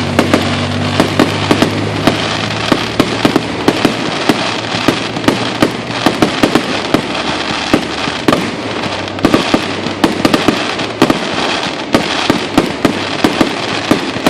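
Fireworks going off: a rapid run of sharp bangs and pops, several a second without letup, over a constant crackle.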